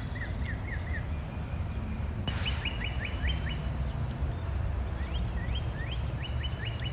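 A bird singing phrases of quick, repeated, sliding chirps, about four or five a second, over a steady low rumble.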